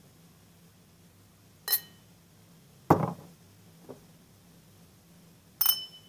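Stemmed glasses clinked together, Soviet Gus-Khrustalny diamond-cut crystal and a plain wine glass for comparison: a clear high ringing chime about two seconds in, a louder, duller knock about a second later, and another ringing chime near the end that keeps ringing.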